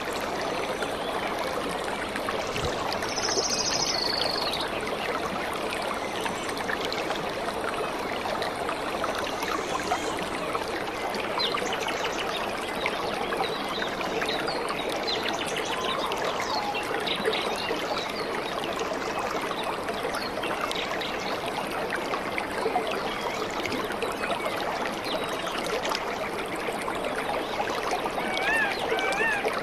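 Steady running water like a flowing stream, with birds chirping through it: a brief high chirp about three seconds in and a run of repeated chirps near the end.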